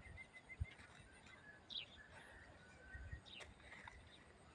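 Faint bird chirps over a quiet outdoor background: a quick run of short, high notes at the start, then scattered single chirps, with a couple of soft low thumps.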